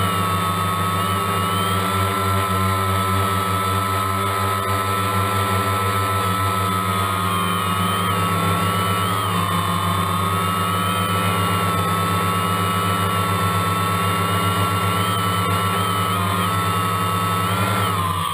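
DJI Phantom 1 quadcopter's electric motors and propellers running steadily in a hover, a loud whine of several steady tones heard from the GoPro mounted on the drone itself. Near the end the pitch dips briefly as the drone descends.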